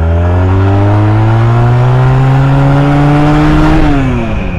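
Honda Rebel 250 motorcycle's engine pulling under acceleration, its pitch rising steadily for about four seconds, then dropping near the end as the throttle is rolled off.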